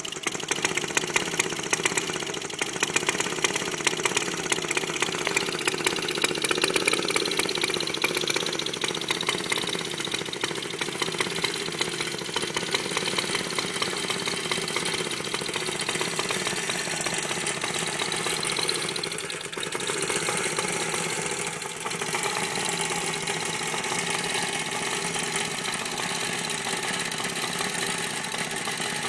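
1948 Qualcast cylinder mower's two-stroke engine running, back in use after 20 years unused. It runs unevenly with sharp pops during the first several seconds, then settles to a steadier beat.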